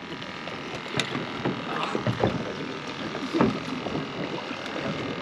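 Boat rocking on open water: waves slapping the hull and wind on the microphone, with a few scattered knocks.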